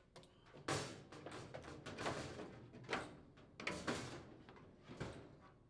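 Front half of a dryer blower housing being worked loose and lifted off: a series of irregular scrapes and light knocks.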